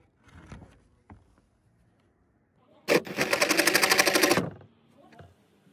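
Jigsaw cutting through SmartSide engineered-wood siding in one burst of about a second and a half, starting about halfway in, with a fast, even buzzing rattle. It is finishing a plunge cut into the corner. A few light handling clicks come before it.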